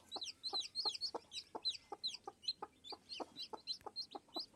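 Newly hatched chicks peeping in a quick run of short, high, falling notes, several a second, with a brooding hen's low, soft clucks in between.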